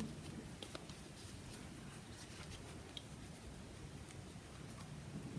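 Faint rustling and small ticks of a crochet hook and yarn as stitches are worked by hand, over quiet room tone.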